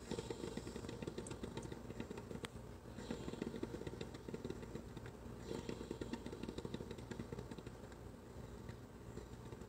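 PowerXL Grind & Go coffee maker near the end of its brew cycle, its water gurgling and bubbling irregularly. A higher hiss comes and goes twice.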